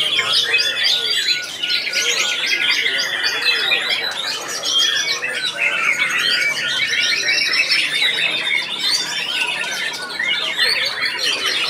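Several white-rumped shamas singing at once in a dense tangle of fast, varied whistles, rapid repeated trills and harsh notes.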